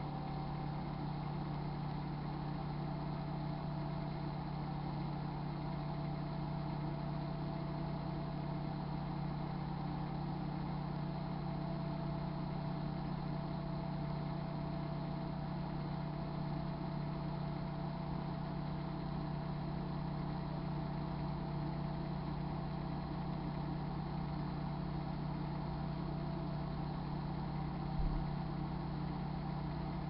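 Microwave oven running with a steady hum while heating a bottle of water and denture-cleaner tablets on its turntable, with a faint low thump near the end.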